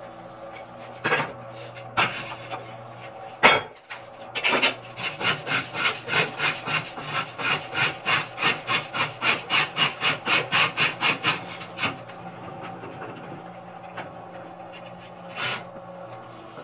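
A concrete core drill with a 4-inch hole-saw bit hums steadily as it cuts concrete. There are a few knocks in the first seconds, then a run of rhythmic scraping strokes, about three or four a second, lasting some seven seconds.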